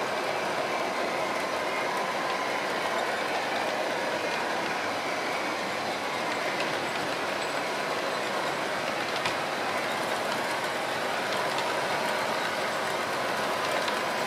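OO gauge model InterCity 125 (HST) train running steadily past on the layout: an even rumble of model wheels on track with a faint motor hum. A single sharp click comes about nine seconds in.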